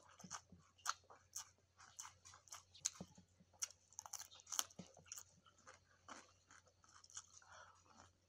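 Chewing noodles and crisp cucumber, close-miked: irregular wet smacks and small crunches, several a second.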